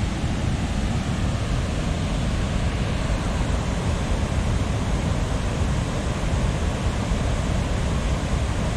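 Steady rushing of river floodwater spilling over the crest of a hydroelectric dam at near-peak flood flow.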